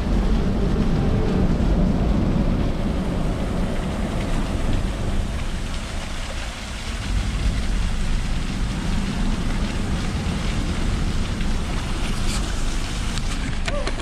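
Steady rush of a small waterfall splashing into a pool, with wind on the microphone and a few clicks near the end.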